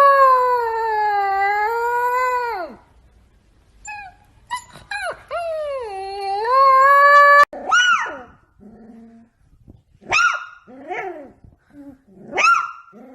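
A dog howling: two long, drawn-out howls that sag in pitch and rise again at the end. These are followed by a string of short, arching yelping whines, one about every second.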